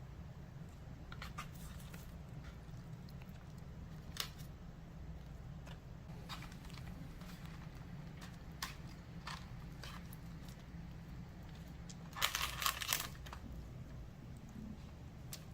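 Quiet hand-handling sounds as crescent dough is rolled up over the filling: soft scattered taps and rustles, with a short louder crinkling run about twelve seconds in, over a low steady hum.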